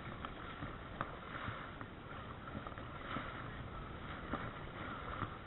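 Spinning reel being cranked to bring in a hooked fish: a faint steady whir with scattered small clicks, over the wash of water and wind.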